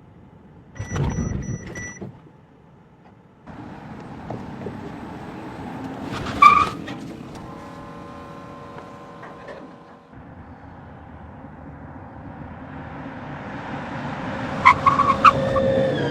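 A string of short, edited vehicle sounds with abrupt cuts between them: a brief loud burst about a second in, then steady vehicle noise with a sharp click about six seconds in, building louder toward the end with several clicks.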